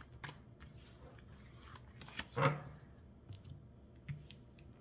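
Tarot cards being handled and drawn: light scattered clicks and rustles of cards on a cloth, with one louder rustle about two and a half seconds in.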